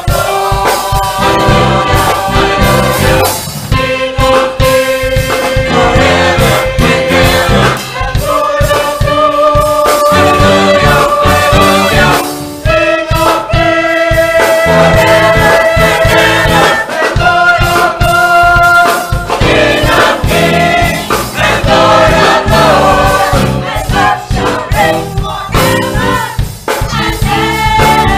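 A gospel choir singing with band accompaniment, the voices holding long sustained notes over a steady beat.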